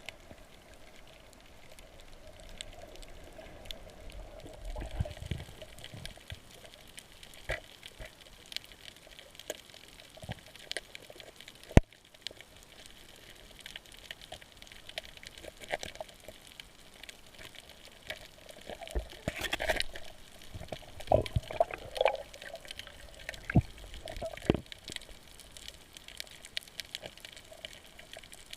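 Water sloshing and trickling, with scattered clicks and knocks; one sharp knock about twelve seconds in, and a busier run of splashy, bubbling sounds about two-thirds of the way through.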